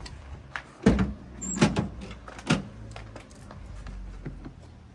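Three loud, sharp clunks about three quarters of a second apart, with lighter knocks around them, like a door or lid being handled.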